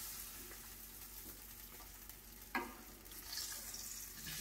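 Hot fat left from searing beef sizzling steadily in a skillet while a fork stirs through it, with one sharp clink of the fork against the pan about two and a half seconds in.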